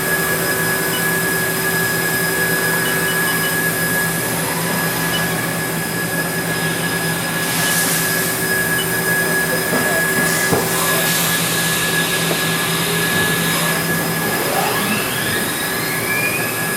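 Haas VF-3 vertical machining center running with a steady mechanical whine and hum made of several held tones. A low tone drops out near the end, and rising whines follow.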